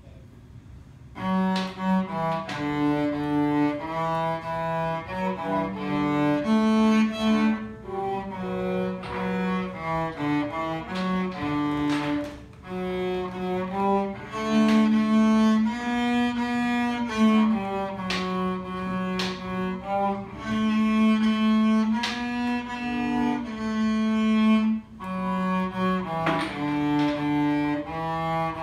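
Solo cello bowed, playing a slow melody of held notes one after another, starting about a second in.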